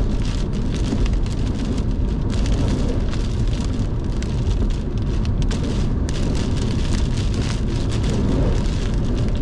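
Heavy wind-driven rain hitting a moving car, heard from inside the cabin: a dense, steady patter of rain on the body and glass over a low rumble of wind gusts and road noise.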